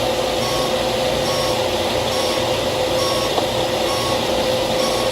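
Steady machine hum holding one constant tone, with a faint beep repeating about once a second, as from a vehicle's reversing alarm.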